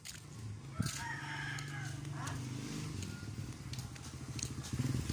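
A rooster crowing once, about a second in, over the steady low drone of a running engine that grows louder near the end.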